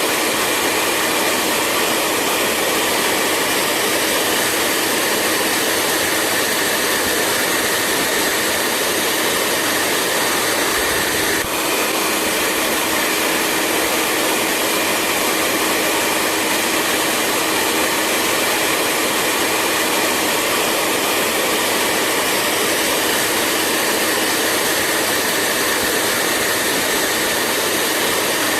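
Hair dryer running steadily: a constant rush of blown air over a steady motor hum, with a momentary dip about eleven seconds in.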